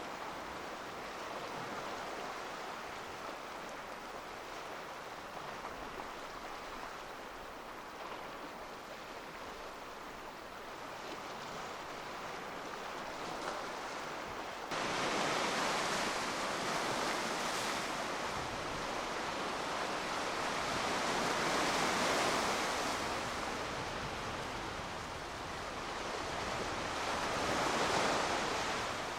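Black Sea waves washing against the shore, a steady rushing wash that gets abruptly louder about halfway through, then swells twice as waves come in.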